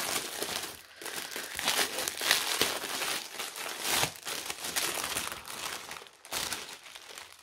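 Clear plastic bag crinkling and rustling as hands open it and handle the small zip-lock bags of diamond painting drills inside; the crinkling dies down near the end.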